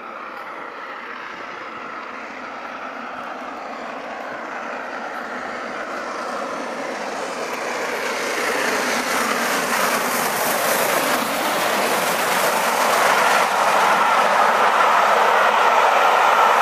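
Mainline steam locomotive approaching at speed with its train of coaches, growing steadily louder, then the coaches rushing past close by near the end with wheels clattering over the rails.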